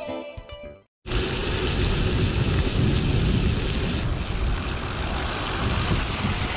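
A steady, loud rushing of wind buffeting a chest-mounted action camera's microphone, mixed with heavy rain, while riding a gravel bike. It starts about a second in, after a short tail of music fades and cuts to a moment of silence.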